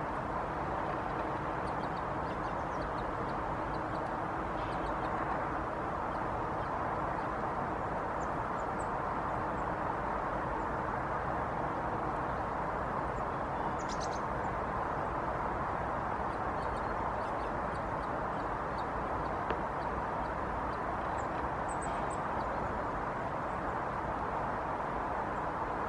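Faint, short high chirps of blue tits, scattered a few at a time, with a brief cluster about halfway through and another near the end, over a steady background hiss of city traffic.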